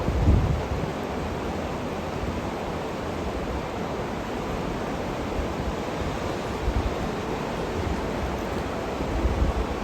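Steady rush of the Colorado River's water, with wind buffeting the microphone in low bumps at the start and again near the end.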